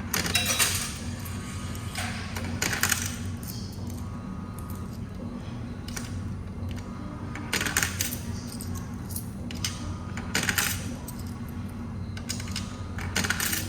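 Coins dropped one after another into a coin-laundry washing machine's coin slot, each landing with a sharp metallic clink, over a steady low machine hum. The coins are not being counted and drop back out to the return, because the wash course button was not pressed first.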